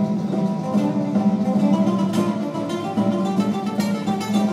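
Cutaway classical guitar played solo: quick runs of plucked notes over a sustained low bass note, in a flamenco-like style.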